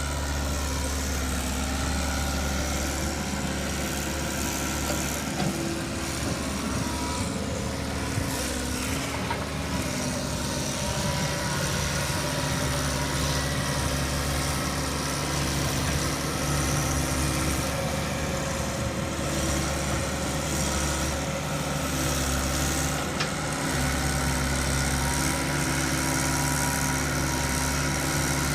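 Diesel dump truck engine running steadily at low revs, a constant drone whose pitch wavers a little in the first half.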